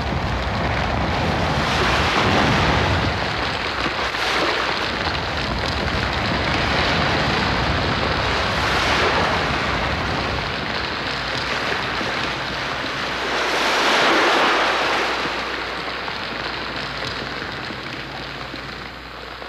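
A rushing roar of wind and water, like surf, that swells and ebbs several times, loudest about two-thirds of the way through, then fades toward the end.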